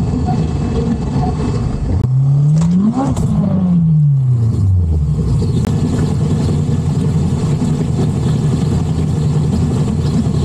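A motor vehicle's engine runs steadily under road and wind noise. About two seconds in, an engine note rises sharply in pitch, then sinks back down over the next couple of seconds.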